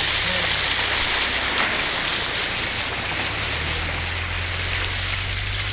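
Floodwater rushing over and past the road, a loud steady wash of water, with a vehicle engine running low underneath; the engine's note shifts about three and a half seconds in.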